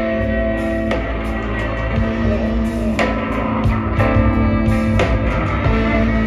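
Live band playing: fiddle, guitars, bass guitar and drums. Held notes ring over strong hits that land about every two seconds.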